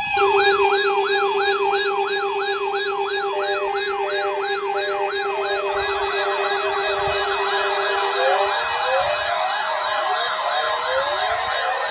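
Several electronic siren alarms sounding together, most likely weather alert radios triggered by the alert test. A fast yelping rise-and-fall of about three cycles a second runs over a steady low tone and short pulsed beeps. More sirens join partway through with slower rising wails, and the low tone stops about two thirds of the way in.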